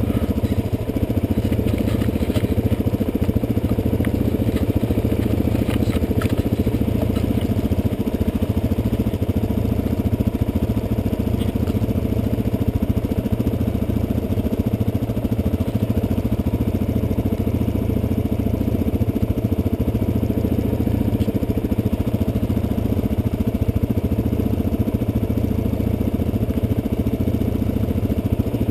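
Trail motorcycle engine running steadily at low, even revs while riding through the woods, with a few faint clicks about two and six seconds in.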